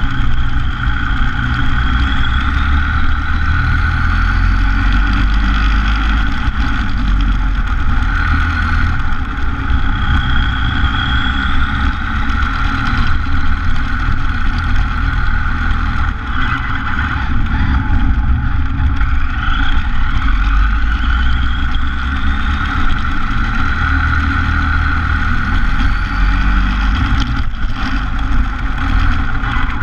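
Radio-controlled car driving on pavement, heard from a camera mounted on the car: steady rumble from the tyres and wind, with a motor whine that rises in pitch several times as the car speeds up.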